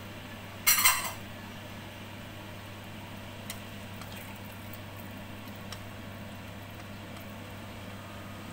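A short, loud clatter of kitchenware about a second in, then two faint taps as wooden chopsticks stir the soup in a wok. A steady low hum runs underneath.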